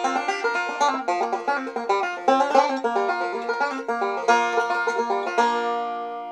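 Resonator banjo with a Yates-built pot assembly, made to replicate the sound of a 1933 no-hole banjo, picked in quick runs of bright notes. About five and a half seconds in, the tune ends on a final chord that rings out and fades.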